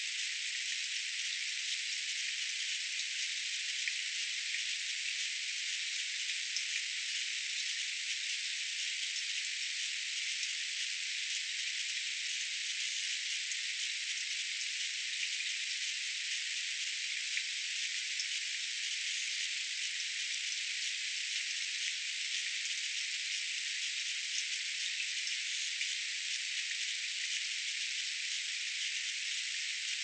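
Steady, even hiss with faint scattered ticks, unchanging throughout, with no birdsong.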